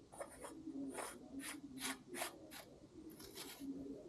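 Threaded metal bottom bracket cup being turned by hand into a bicycle frame's bottom bracket shell, making a run of short scraping rubs about two a second.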